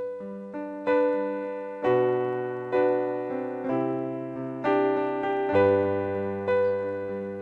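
Piano playing slow, sustained chords, a new chord struck about once a second and left to ring and fade.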